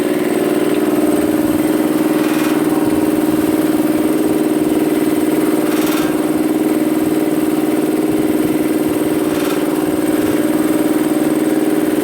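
North Star 2 hp 20 gallon vertical air compressor running steadily on its first start-up, fresh compressor oil in the crankcase, with an even machine hum at one steady pitch.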